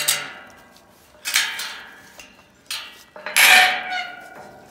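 Metal farm gate being unlatched and swung: four metallic clanks and rattles of the latch and bars, the loudest about three and a half seconds in, leaving a ringing tone that fades.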